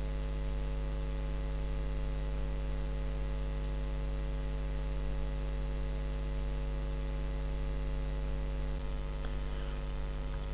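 Steady electrical mains hum with a faint hiss underneath.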